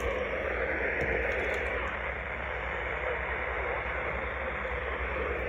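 Steady hiss of radio static from a weather radio receiver, with a faint low hum beneath.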